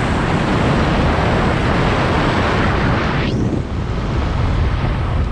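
Wind buffeting the microphone of a moving bike: a loud, steady rush whose hiss thins out about three seconds in, leaving a lower rumble.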